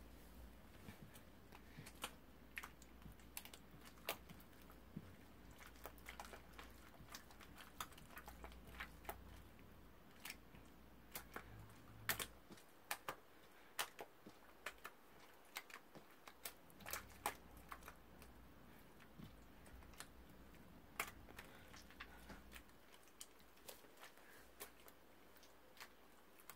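Faint, irregular light clicks, a few a second, over a low hum.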